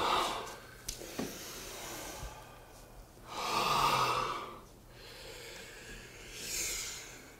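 A person breathing audibly: two long, rushing breaths, one about three and a half seconds in and a shorter, higher-sounding one near the end.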